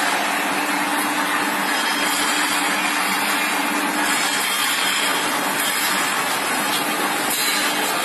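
CNC tube bending machine running without bending: a steady machine hum with a constant low tone under an even hiss, holding one level with no strokes or knocks.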